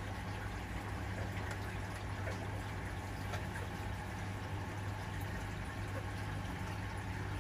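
Saltwater aquarium pump and water circulation running steadily: a low, even hum under a constant trickle and bubbling of water, with a few faint ticks.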